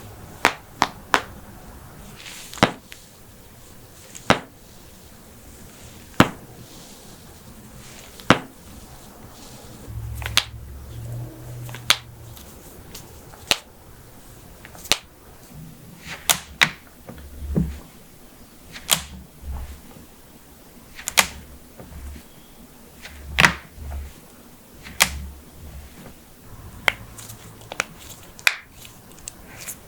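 Human joints cracking: about twenty sharp single pops, one every second or two, with a quick run of three at the start. A low muffled rumble of handling sits under the middle stretch.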